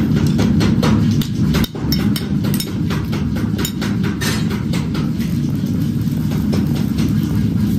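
Stick (arc) welding on steel: the arc crackles and spits over a steady low hum, with a brief break about a second and a half in.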